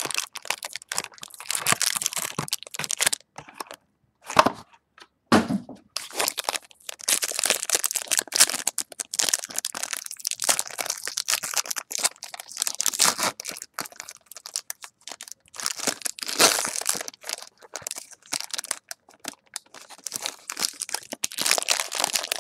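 Foil wrappers of Topps Strata football card packs crinkling and tearing as they are opened by hand: irregular crackling, with short pauses about three and a half and five seconds in.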